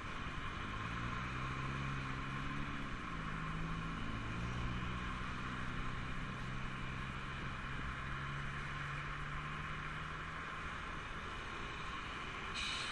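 Road traffic at a roundabout over a steady hiss of tyres and passing cars. One vehicle's engine can be heard pulling away: its pitch drops at a gear change about three seconds in, then rises slowly for several seconds before fading.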